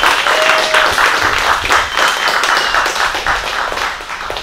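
A small group clapping and applauding, thinning out near the end.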